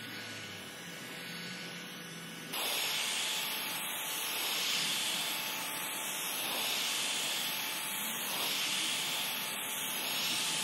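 Heat gun on its low setting blowing hot air onto a steel ring gear: a steady rushing hiss that steps up louder about two and a half seconds in, then swells and fades gently as the gun is moved over the gear.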